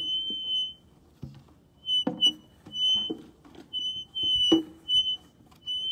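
A high whistle-like tone repeated at one pitch in notes of uneven length, with two sharp knocks, one about two seconds in and a louder one about four and a half seconds in.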